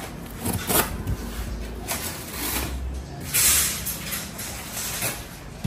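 Cardboard boxes being handled and shifted, giving a series of rustling and scraping noises, the loudest about three and a half seconds in.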